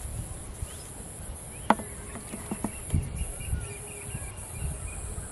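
Steady high-pitched buzz of insects such as crickets over a low rumble. A few sharp clicks or knocks come about two to three seconds in, the first the loudest.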